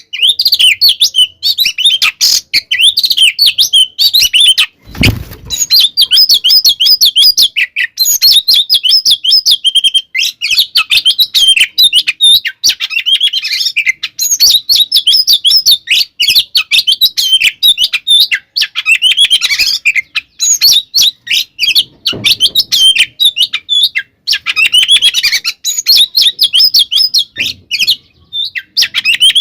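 Oriental magpie-robin (kacer) singing in full, agitated voice: a dense, unbroken stream of quick, varied whistles and chattering notes. This is the combative song that keepers call tarung. There is a brief low thump about five seconds in.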